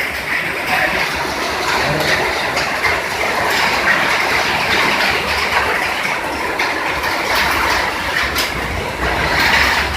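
Heavy rain and wind of a thunderstorm: a loud, steady rushing with scattered sharp ticks.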